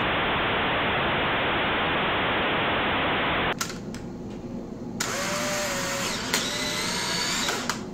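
A loud, steady hiss for about three and a half seconds that cuts off abruptly, then a couple of clicks from the Polaroid Land Camera Pronto's shutter, and about a second later the camera's motor whirring for nearly three seconds as it pushes out the print.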